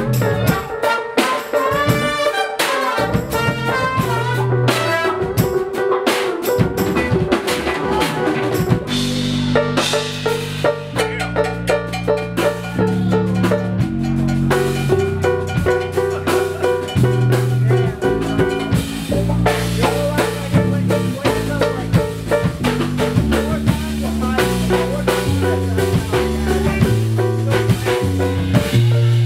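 Live jazz-fusion band playing: drum kit, saxophone and electric guitar, with a low stepping bass line coming in about nine seconds in.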